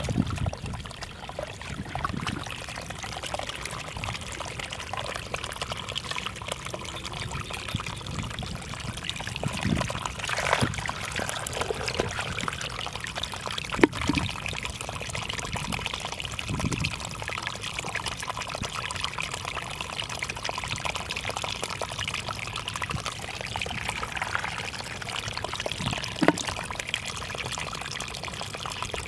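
Water trickling and pouring steadily, with a few brief splashes or knocks along the way.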